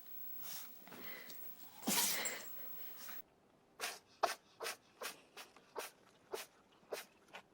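A pet animal sneezing: one sneeze about two seconds in, then a quick run of short sharp sneezes, about two or three a second.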